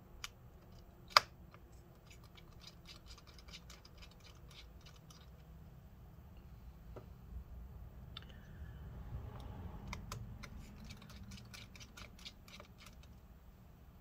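Rapid light ticking of a precision pentalobe screwdriver working out tiny screws from a MacBook Pro's wireless antenna bar, in two runs, with one sharp click about a second in.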